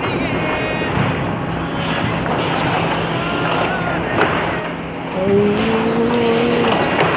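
Automatic T-shirt screen-printing machine running, with the steady hum and clatter of its motors and squeegee heads. About five seconds in, a held tone sounds for about a second and a half over the machine noise.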